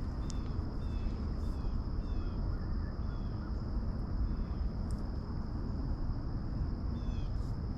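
Outdoor ambience: a steady low rumble of wind on the microphone, under a continuous high insect drone and a bird repeating short falling chirps every half second or so.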